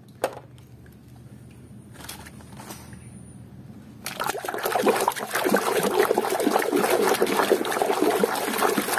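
A hand sloshing and scrubbing a toy in a basin of muddy water, a dense splashing that starts about four seconds in and goes on steadily. Before it, a quieter stretch with a few light knocks as a toy is picked up off the tiled floor.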